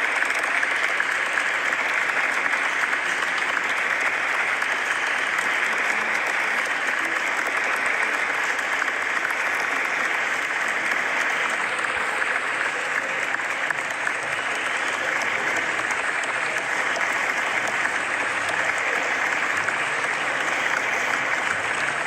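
Crowd applause: many people clapping steadily in a dense, unbroken wash.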